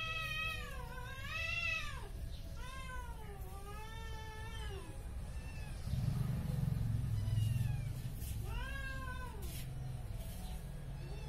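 Cat yowling: a series of long, drawn-out, wavering calls, rising and falling in pitch, with a lull around the middle: a territorial warning at a neighbour's cat. A low rumble rises about six seconds in and fades about two seconds later.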